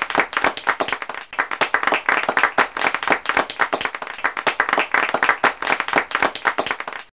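Applause: many hands clapping fast and unevenly, a dense patter of claps.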